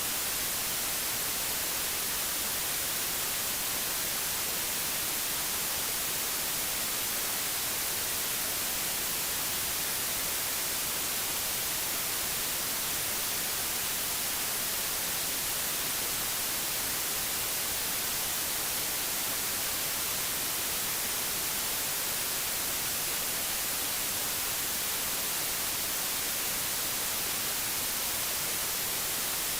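Pure digital white noise with a flat spectrum: a steady, even hiss with the most energy in the treble and no change in level.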